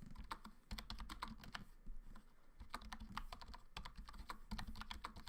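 Typing on a Logitech K400r wireless membrane keyboard: a fast run of light key clicks, easing off briefly about two seconds in.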